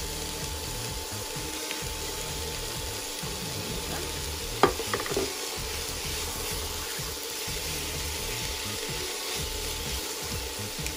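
Cabbage, bell pepper, chicken and shrimp sizzling in a square nonstick pan while being stirred and tossed with metal tongs, with a steady frying hiss and scraping. One sharp knock about halfway through is the loudest sound.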